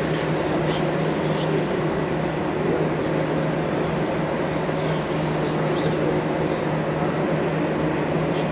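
Steady sports-hall background noise: a constant low hum under an indistinct murmur of people, with a few faint short clicks or squeaks.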